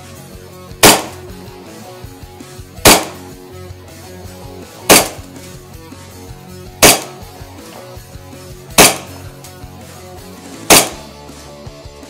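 RWA Nighthawk Custom GRP airsoft pistol, CO2-powered gas blowback with a steel slide, firing six single shots about two seconds apart, each a sharp crack with the slide blowing back. Guitar music plays underneath.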